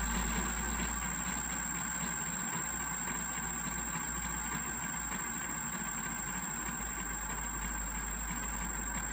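A 3D-printed multi-coil motor/generator running with a steady electric hum and whir, slowly getting a little quieter.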